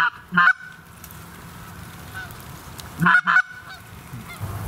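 Canada geese honking: two honks about half a second apart at the start, then another pair about three seconds in.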